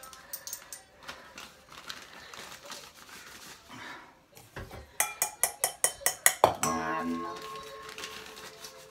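Measuring spoon clinking against a bowl as powdered sugar is scooped and measured: a few light taps, then a quick run of about a dozen sharp clinks about five seconds in, ending in a short ringing note.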